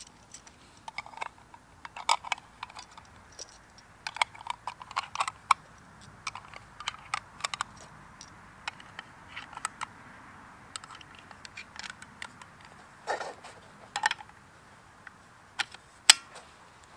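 .308 cartridges being pressed one at a time into a steel AICS-pattern rifle magazine: a string of small metallic clicks and scrapes. Near the end the loaded magazine is slotted into the rifle's magazine well with the loudest click.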